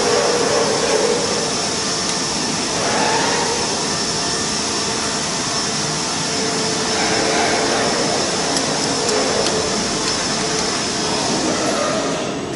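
Steady machine noise from workshop equipment running, a constant rush with a faint high whine held through it. It drops off a little just before the end.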